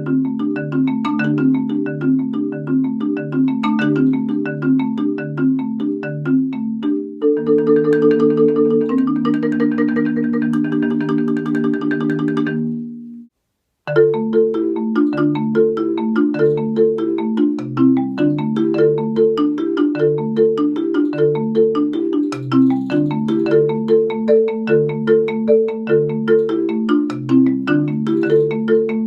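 Solo marimba played with four mallets: a quick, rhythmic pattern of repeated notes. About seven seconds in it changes to sustained rolled chords, which fade to a brief silence about halfway through, and then the rhythmic pattern starts again.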